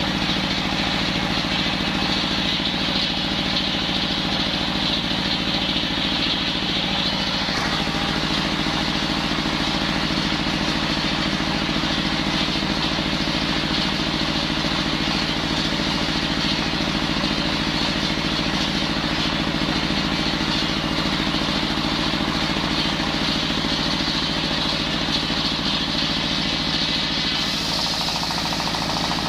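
Engine-driven circular saw running steadily while sawing wood, a motor drone under a high whine of the blade; the engine note changes about seven seconds in.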